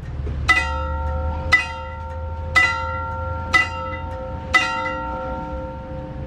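Electric warning bell on an Indonesian railway level-crossing post struck five times, about once a second, each strike ringing on, over a low steady rumble. The bell rings to signal that a train is approaching the crossing.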